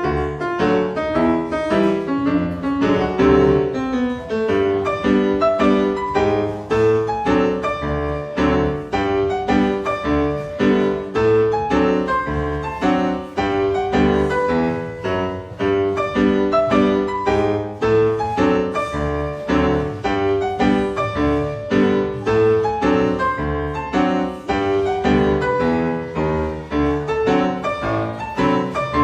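Cha-cha-cha dance music led by piano, with a steady, even beat.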